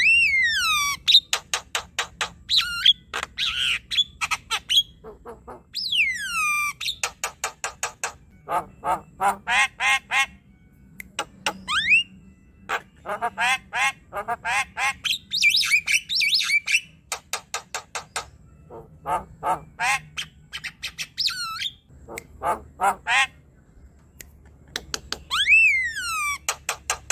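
Javan myna singing a varied song: fast runs of sharp chips and clicks, bursts of harsh squawky chatter, and long down-slurred whistles at the start, about six seconds in, and near the end.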